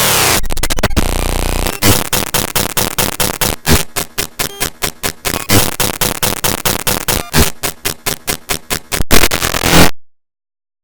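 Loud, harsh distorted electronic noise: a steady blast for about two seconds, then chopped into rapid stuttering pulses, cutting off abruptly near the end.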